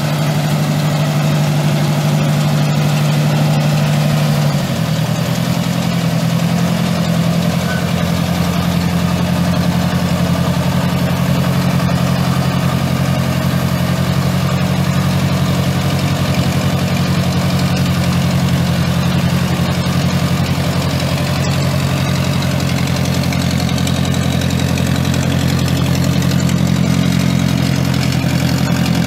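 Ford 600 tractor's four-cylinder gas engine running steadily at a low, even speed, its pitch shifting slightly about four and a half seconds in.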